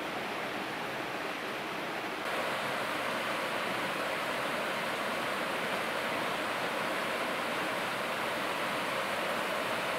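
Steady rush of a small river pouring over a low weir and shallow riffle, louder from about two seconds in.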